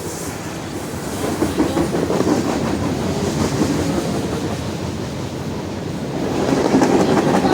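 CSX freight train's refrigerated box cars rolling past close by, their wheels clacking over the rail joints in a steady clickety-clack that swells about a second in and again near the end.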